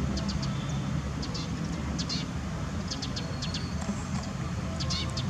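Short, high chirps from birds or monkeys, recurring every half second or so, over a steady low rumble.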